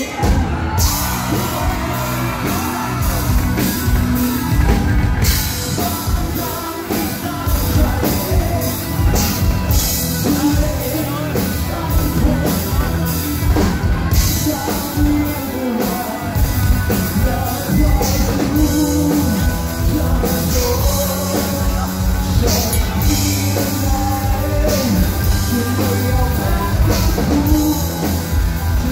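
Rock band playing live: a male singer over electric guitars, bass guitar and drums.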